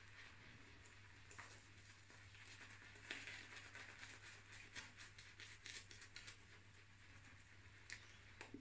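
Faint, irregular soft crackling and swishing of a synthetic shaving brush working lather over the face and jaw.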